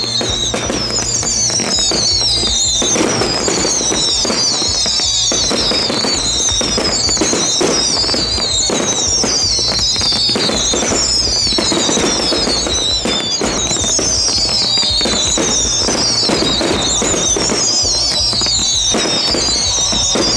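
Music with a high falling phrase repeating about every second and a half, over a fireworks display with shells bursting and crackling throughout.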